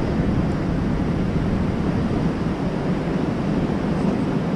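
Steady wash of surf on a rocky shore, mixed with wind rumbling on the microphone.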